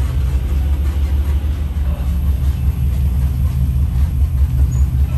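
Food truck's engine running and its road rumble, heard from inside the cab while driving slowly: a steady low drone.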